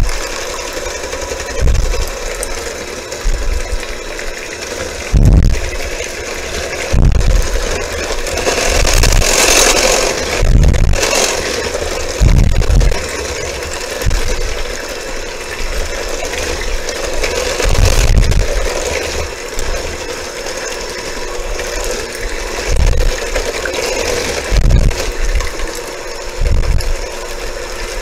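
Electric hand mixer running steadily, its beaters whirring through a runny egg, lemon juice and sugar batter in a stainless steel bowl. Irregular low thumps every second or two come through over the motor.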